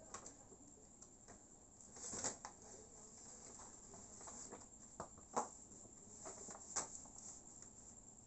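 Brown paper shopping bag rustling faintly as a toddler handles it by its string handles, with a few short crinkles and light taps; the sharpest comes about five and a half seconds in.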